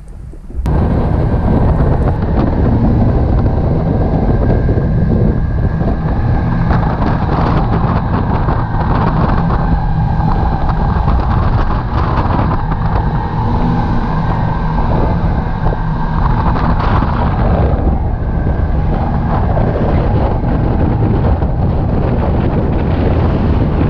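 Noosa Cat catamaran's twin outboard motors running at speed, with the rush of the wake and wind buffeting the microphone. It cuts in suddenly about half a second in, after a brief quieter moment.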